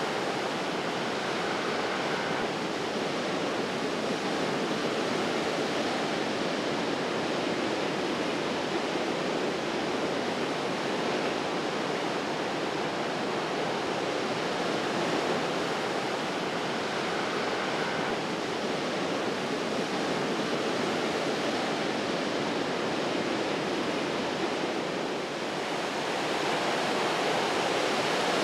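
Pacific surf breaking and washing in over shoreline rocks: a steady rushing wash of waves that swells a little louder near the end.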